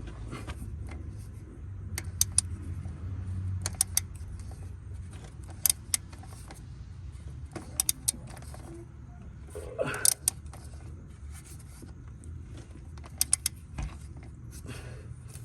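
Scattered sharp metallic clinks and taps, often in pairs, from hand tools and metal parts being handled, over a steady low hum.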